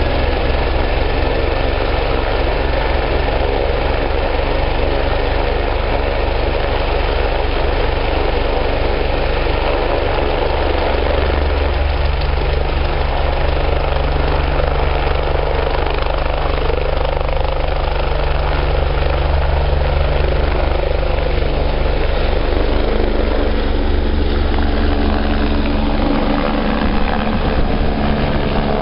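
Eurocopter-Kawasaki BK 117 B-2 helicopter, its twin turbines and rotor running on the ground with a fast, steady rotor beat. Power comes up in the last few seconds as it lifts off.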